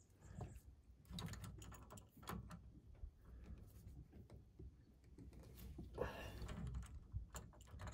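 Faint metallic clicks and knocks of an internal pipe wrench being worked in a hydraulic fitting, backing out broken 1/2-inch pipe threads, with a brief scraping noise about six seconds in.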